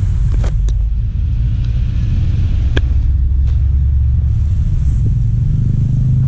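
Angkot minibus running on the road, heard from inside the cabin: a steady low engine and road rumble with a few light rattling clicks. The engine note rises slightly near the end.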